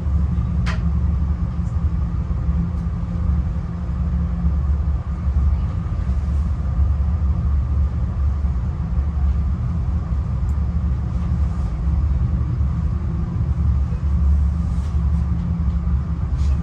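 Steady low rumble of a moving passenger train heard from inside a Budd stainless steel Skyline dome car as it rides the rails, with a faint steady hum above it. A single short click sounds about a second in.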